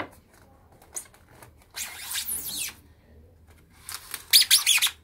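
Polystyrene foam shipping box being worked open, the foam lid rubbing against the base. There is a rasping scrape about two seconds in, then a run of loud, wavering, high-pitched squeaks near the end.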